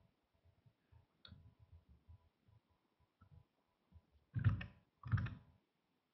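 Faint scattered clicks over an online meeting's computer audio line, with two short, louder bumps about four and a half and five seconds in.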